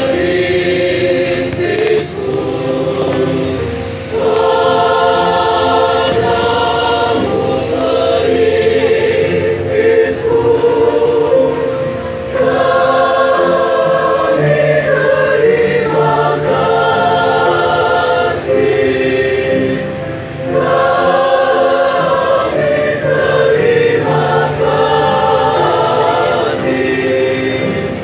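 A large choir singing.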